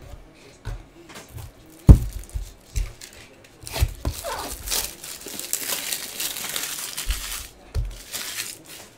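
A sharp knock about two seconds in, then several seconds of crinkling plastic packaging as trading cards and packs are handled.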